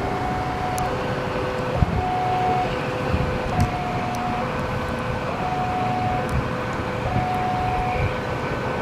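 Railway level-crossing warning siren sounding a two-note alarm, a low and a higher tone taking turns about every three-quarters of a second, over the rumble of waiting traffic. The alternation is uneven, and this is the crossing siren the uploader calls badly faulty.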